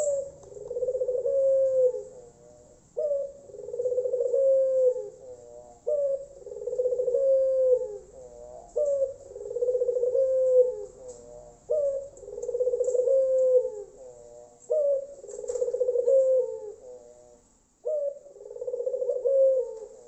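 Tangerine ringneck dove (puter) cooing in full song: seven rolling 'kruu-krooo' phrases, one about every three seconds, each a short opening note running into a long coo that drops at the end.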